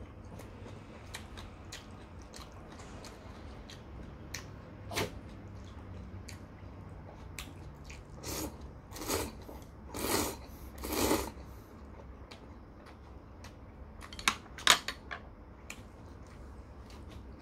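A man eating thin wheat noodles from soup: four loud slurps about a second apart midway, with soft chewing and small mouth clicks around them, and a few sharp clicks near the end.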